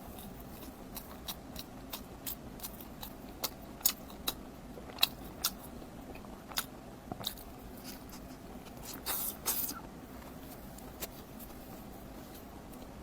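Close-miked eating sounds: scattered sharp clicks and crunches of biting and chewing, with a brief rustling scrape about nine seconds in.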